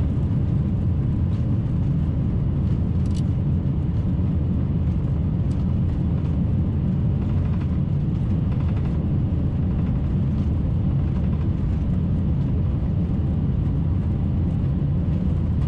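Steady low rumble inside the cockpit of an Airbus A380 rolling along the runway after touchdown.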